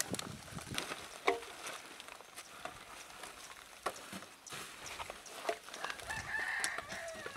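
A rooster crowing once near the end, one call about a second long. Underneath, scattered light clicks and rustles of plastic rubbish and sacks being handled.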